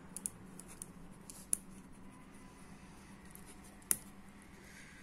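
Felt-tip pen writing on paper: faint scratching strokes and small ticks, with two sharper clicks about a second and a half and four seconds in.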